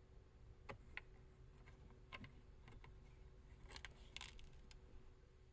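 Near silence with a few faint, scattered clicks and taps, and a small cluster of them about four seconds in.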